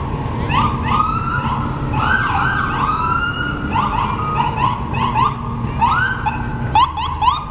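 Emergency vehicle siren sounding over the rumble of city traffic, cycling through quick rising yelps with a few longer rising-and-falling wails mixed in.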